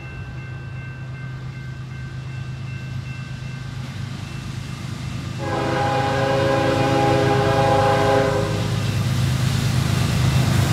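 Canadian National diesel freight locomotive approaching, its low engine rumble growing steadily louder. Its air horn sounds two long blasts for the grade crossing, a fainter one at the start and a loud chord from about five seconds in lasting about three seconds.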